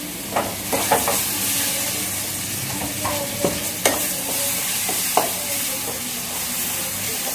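Onion-spice masala sizzling in a wide metal pan as chopped tomatoes are added and stirred in with a steel spoon, which scrapes and clinks against the pan several times.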